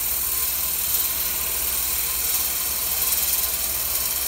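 Wood lathe running at low speed with a turning tool taking a light finishing cut on a chokecherry goblet: a steady low hum with a quick regular pulse under an even hiss. The off-balance piece, hanging far out of the chuck, is still vibrating even at this low RPM.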